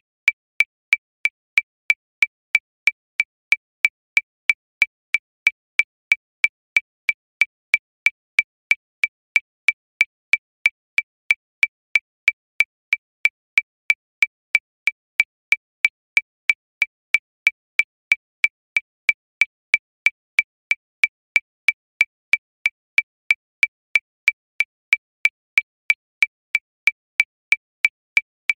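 Metronome clicking steadily at 185 beats per minute, about three short, high clicks a second, each click alike with no accented beat.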